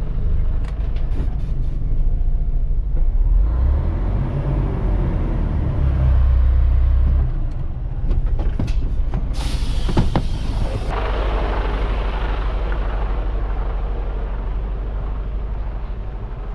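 Heavy truck's diesel engine running, revving up for a few seconds in the first half. About ten seconds in comes a hiss of compressed air from the air brakes lasting about a second and a half, with a few scattered clicks.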